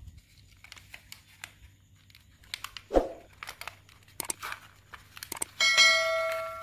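Sheets of notebook paper rustling and crinkling as they are folded and rolled around small calamansi, with scattered light clicks and a single thump about three seconds in. Near the end a bell-like ding rings out and fades over about a second and a half, matching a subscribe-bell overlay's sound effect.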